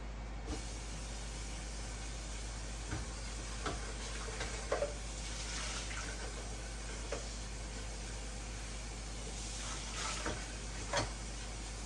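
Steady kitchen hiss, like food sizzling, with a handful of light knocks and clinks of utensils or dishes scattered through it.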